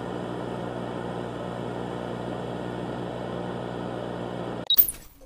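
Old-TV static sound effect: a steady hiss with a low electrical hum under it, cutting off with a short crackle of clicks near the end.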